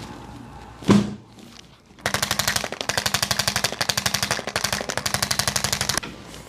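A single sharp thump about a second in, then a handheld motorized percussion tool hammering against the body in rapid, even strokes over a steady motor hum for about four seconds before stopping abruptly.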